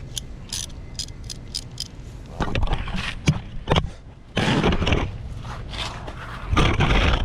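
Tools and body scraping against the ground and car while working under a car with a socket wrench: a few light clicks, then several rough scrapes of about half a second to a second each.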